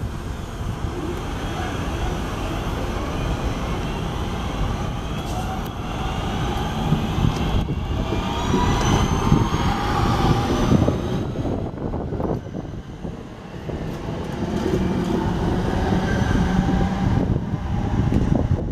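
Class 323 electric multiple unit pulling away from the platform and passing close by: its traction motors whine, rising in pitch as it gathers speed, over the rumble of the wheels on the track.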